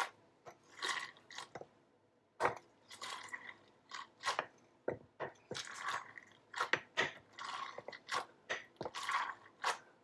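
Sliced red onions being pressed down into a jar of lime-juice brine: a dozen or so short, wet crunches and squelches at an uneven pace, about one a second.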